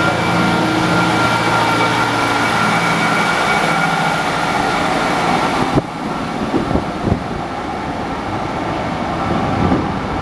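Class 153 diesel railcar departing under power: its underfloor Cummins diesel engine runs hard with a steady whine as the unit passes close by. About six seconds in the sound drops abruptly as the rear of the train goes past, leaving a quieter rumble with a few short knocks as it draws away.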